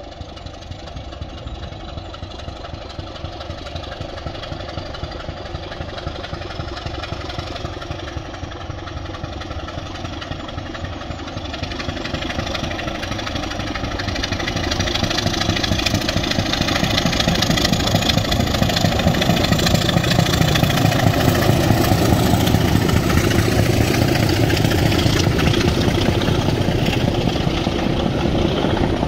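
Class 25 and Class 26 diesel locomotives double-heading a train, their Sulzer six-cylinder engines running and growing steadily louder as they approach, loudest in the last third.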